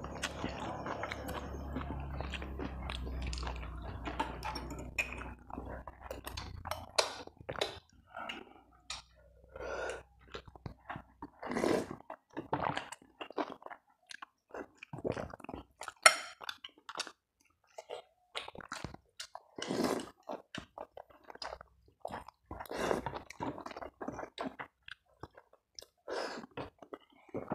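A person chewing and slurping chicken noodles (mie ayam): irregular wet mouth sounds of eating, with a low hum under the first six seconds.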